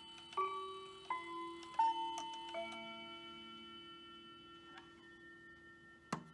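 Hamilton bracket mantel clock's chime striking a four-note descending quarter-hour phrase, the notes about three-quarters of a second apart, then ringing on and fading away. A single sharp click comes near the end.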